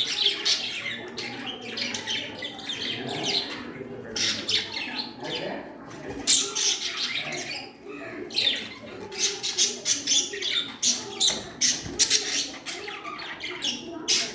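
Pet budgerigars chattering continuously, a busy stream of quick chirps, warbles and sharp squawks.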